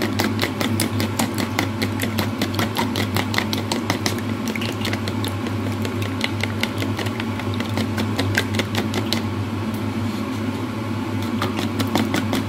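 Raw eggs being beaten by hand in a bowl: rapid, even clicks of the utensil striking the bowl, over a steady low hum.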